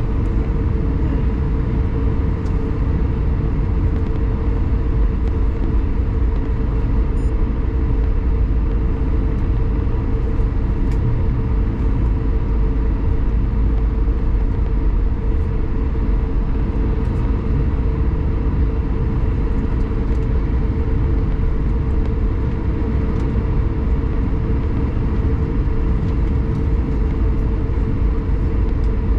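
Airbus A220-300 cabin noise from a window seat near the front: the Pratt & Whitney PW1500G geared turbofans running, a steady loud low rumble with a steady hum over it.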